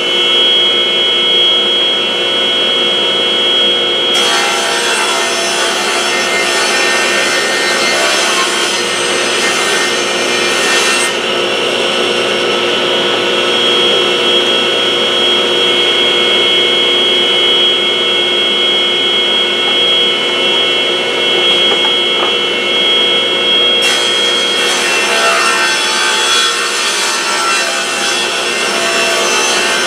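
Table saw ripping pine boards, with its dust collector running: a steady machine whine throughout, and the blade cutting through the wood twice, once for several seconds starting about four seconds in and again near the end.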